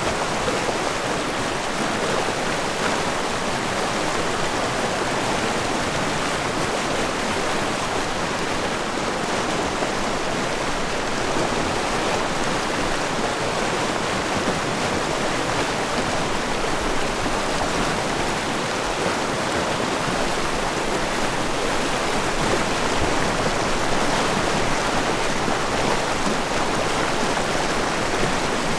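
Fast-moving river rushing below a waterfall: a loud, steady roar of whitewater with no breaks.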